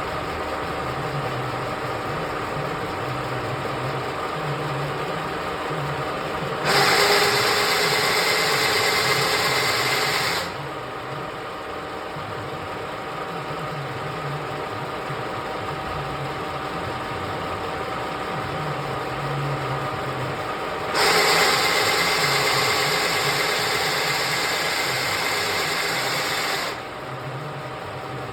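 Parkson 2N universal milling machine running under power, its gearing giving a steady mechanical hum with a few fixed tones. Twice, about seven seconds in and again about twenty-one seconds in, it gets noticeably louder and hissier for several seconds, then drops back.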